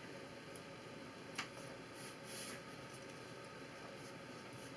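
Faint clicks and light scraping of cardboard jigsaw puzzle pieces being picked up and slid about on a wooden desk, with one sharper click about one and a half seconds in.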